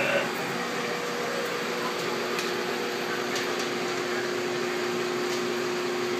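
Steady machine hum of 35mm cinema projection booth equipment, with a low tone running throughout. A second, higher tone joins about half a second in and drops out around three and a half seconds, and there are a few faint clicks.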